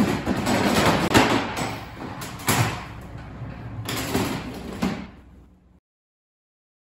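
Blue plastic crates sliding and clattering on a pedal-operated pipe-frame rack, with the metal linkage rattling and several sharp knocks. The crate is lifted when the pedal is pressed and swung forward when it is released.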